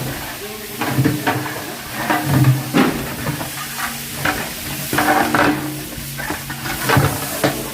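A ladle stirring and scraping through a large pot of frying biryani ingredients, with repeated strokes over a steady sizzle.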